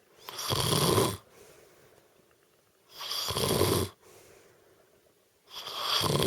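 A woman snoring in her sleep: three loud, rasping snores, each just under a second long, coming about every two and a half to three seconds with quiet breathing between them.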